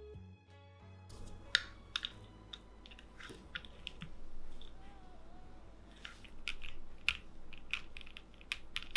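Keycaps being pressed back onto the switches of a Keychron Q1 mechanical keyboard: irregular sharp clicks and taps, bunched into clusters about a second and a half in and again from about six seconds. Background music plays for the first second.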